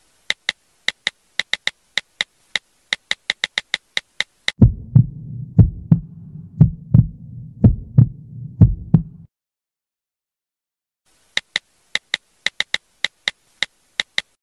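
Phone keyboard tap clicks in quick, uneven runs of typing, then a heartbeat sound effect of low double thumps about once a second for some five seconds, then more typing clicks near the end.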